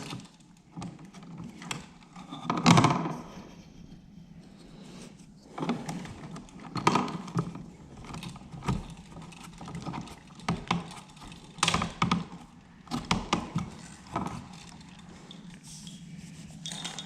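Irregular clicks, scrapes and knocks of electrical wires and small parts being handled at a switch box as the neutral wires are joined. The loudest scrape comes about three seconds in.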